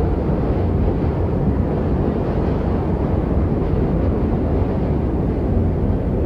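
Steady low rumbling wind noise of a snowstorm ambience sound effect, even throughout with no distinct gusts or events.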